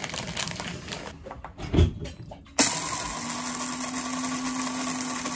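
Rustling and small clicks as coffee beans are handled, then an electric coffee grinder starts abruptly about two and a half seconds in and runs steadily with a constant hum, grinding the beans.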